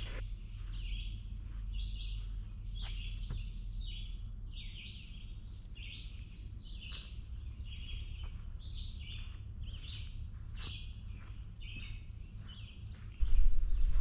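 Several songbirds singing and chirping in a leafy woodland, short phrases overlapping one after another, over a steady low rumble. Near the end the low rumble suddenly gets louder.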